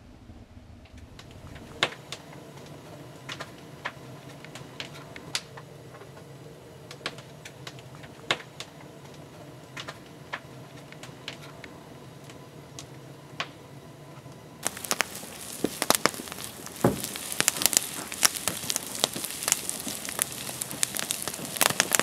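Faint scattered ticks and crackles at first. About two-thirds of the way through, a campfire's dense crackling and popping starts, mixed with the sizzle of potatoes frying in a cast iron skillet on a grate over the flames.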